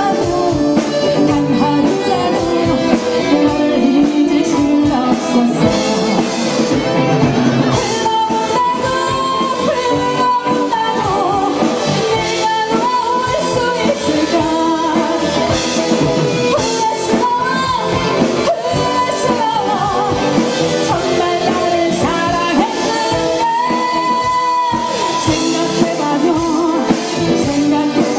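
Live band playing with amplified electric guitars and a drum kit while a woman sings the melody into a microphone, holding long notes through the middle of the passage.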